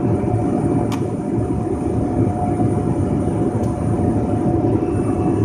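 Single-engine light airplane's propeller engine running steadily in cruise, a constant drone heard from inside the cockpit.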